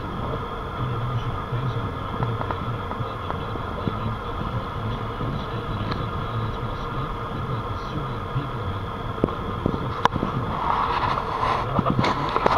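Steady road and engine noise inside a moving Ford's cabin, a low rumble. About ten seconds in there is a sharp click, followed by a brief louder rush of noise and a few more clicks.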